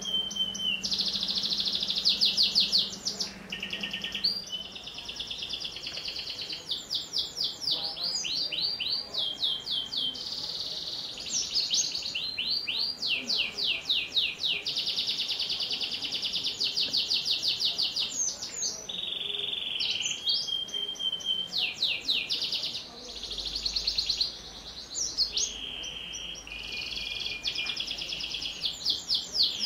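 Domestic canary singing a long, unbroken song: runs of fast repeated chirps and rolling trills, broken up by a few held whistled notes.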